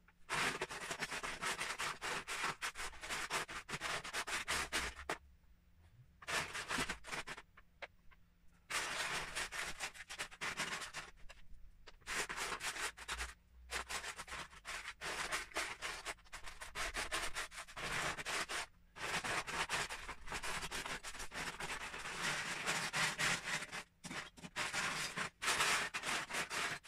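Loose plastic Lego bricks rattling and clattering as hands rake and stir through a plastic storage tub full of them, in long stretches broken by short pauses.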